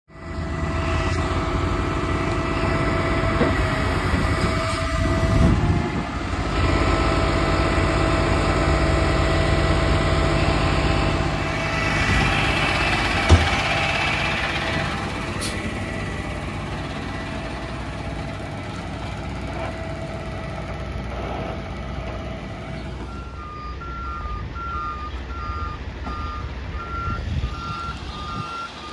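A Ford F650 utility truck's engine running steadily, with one sharp knock about halfway through. In the last few seconds a vehicle's reversing alarm beeps repeatedly.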